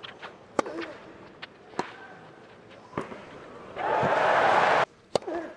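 Tennis ball struck back and forth with rackets in a clay-court rally, a sharp hit about every second. A loud burst of hissing noise comes in about four seconds in, lasts about a second and cuts off suddenly.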